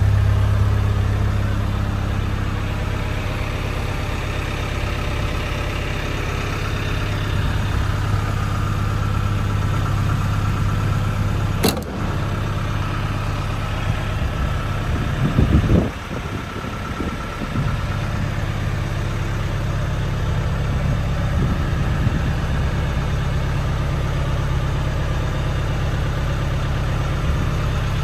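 1979 Land Rover 109 Series III Santana's engine idling steadily after its cold start, with one sharp click about twelve seconds in and a short burst of louder noise around fifteen seconds.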